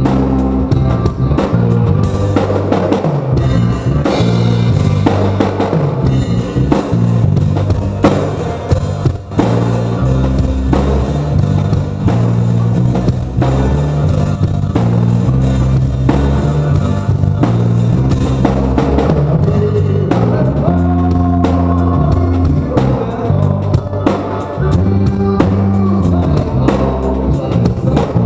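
Rock band playing live at a sound check: a drum kit with a steady bass drum and dense cymbal and snare hits, over bass guitar and electric guitar.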